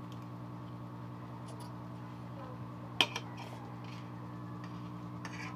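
Spoons and forks clinking and scraping on plates during a meal, with one sharp clink about three seconds in, over a steady low hum.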